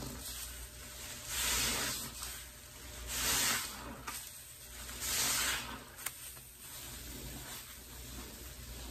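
A soapy sponge squeezed in a bucket of pine-cleaner water, three times about two seconds apart, each squeeze a wet hissing squelch of suds. Between and after the squeezes the suds give a faint fizzing crackle.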